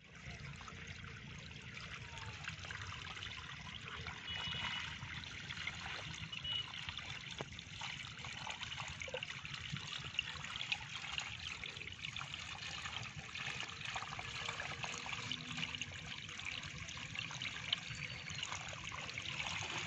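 Water trickling steadily down a channel cut through a mud bank, running past bamboo screen fencing.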